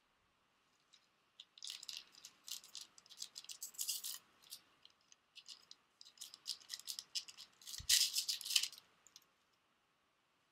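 Crinkly trading-card booster pack wrapper being torn open and handled, in two spells of quick crackling with a short pause between. The loudest crackling comes about eight seconds in.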